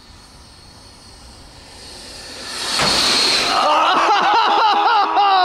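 Electric ducted-fan jet of an RC B-2 bomber model, its rushing whine swelling as it passes close about three seconds in, followed at once by people yelling excitedly.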